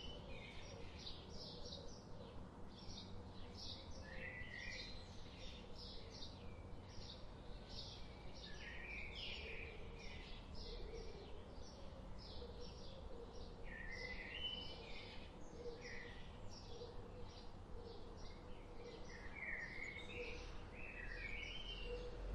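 Forest birds chirping: short high chirps repeat about twice a second throughout, with lower sweeping phrases now and then, over a faint low rumble.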